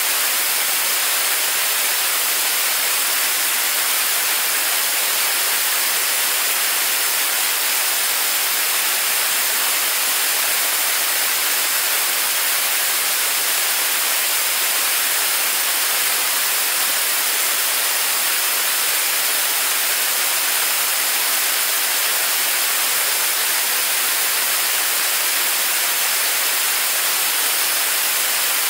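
75-tonne-class liquid-propellant rocket engine in steady firing on a test stand: an even, unchanging hiss with little low rumble.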